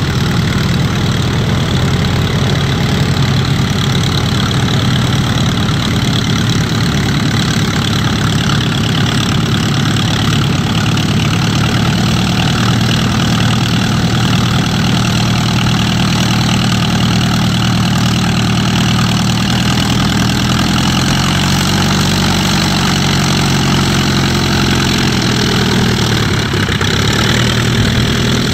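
Klemm 35D's propeller engine running steadily at low power, a throbbing idle as the vintage monoplane taxis on grass.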